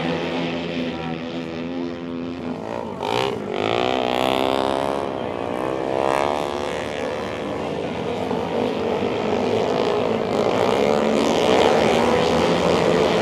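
A pack of 450cc single-cylinder flat-track race bikes running hard on the dirt oval. Their engine notes rise and fall in pitch as the bikes pass and sweep through the turn. The engines get somewhat louder near the end.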